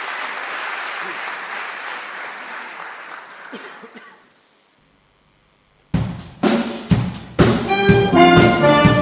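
Audience applause fading away, then after a short silence a concert wind band starts up: a few loud drum hits, then brass and woodwind chords.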